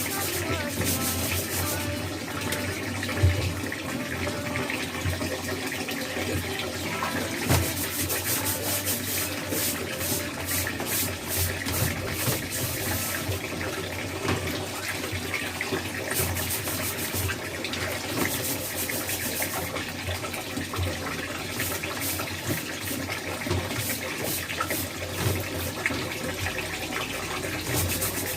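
Water running from a tap into a sink, with repeated scrubbing strokes as fan parts are washed under it.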